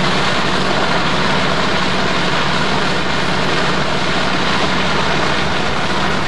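Steady drone of a fire engine running its pump, mixed with the hiss of several hose streams spraying water, with no breaks or single knocks.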